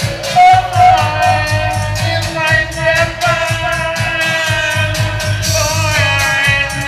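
Dub reggae played through a sound system: a singer's voice over a heavy, steady bass line and a regular hi-hat.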